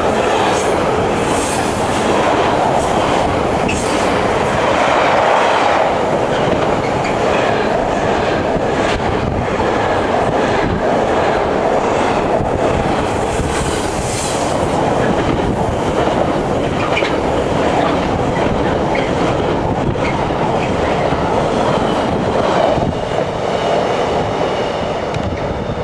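Container freight train's wagons passing close by at speed: a steady rumble and clatter of wheels on the rails, with occasional high squeals. The sound drops a little near the end.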